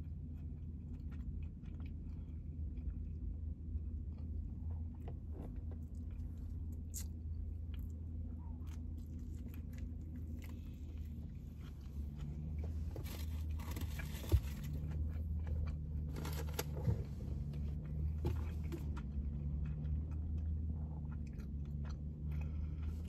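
Close-up chewing of a Philly cheesesteak sandwich: wet mouth sounds and small crunches of the roll, with a sharp click about two-thirds of the way through. A steady low hum runs underneath inside the car cabin.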